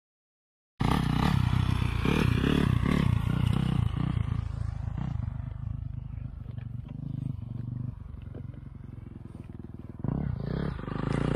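Honda CRF450 dirt bike's single-cylinder four-stroke engine running at low revs, heard from the rider's seat, cutting in abruptly about a second in. It is louder for the first few seconds, drops back in the middle and picks up again near the end.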